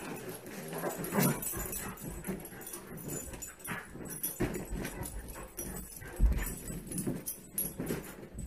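Two dogs play-wrestling on a mattress and blankets: short dog vocalizations among irregular thumps and scuffles of paws and bodies on the bedding.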